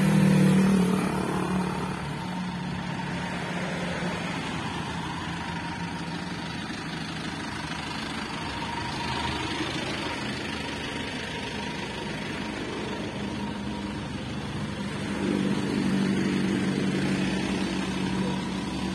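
Street traffic: a bus engine running close by at the start and fading as it moves off, then another motor vehicle's engine coming up and passing about 15 seconds in, over steady road noise.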